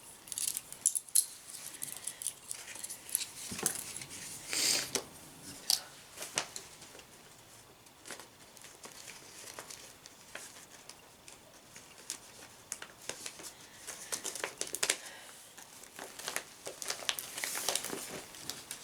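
Paper and plastic crinkling and rustling, with scattered light clicks and taps, as small gift items are handled and pulled out of a pocket letter's pockets.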